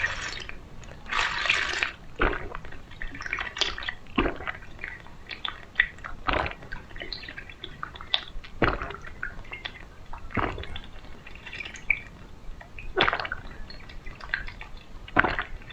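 Close-miked drinking: a sip about a second in, then a series of gulps, one every two seconds or so, with small wet mouth clicks between them.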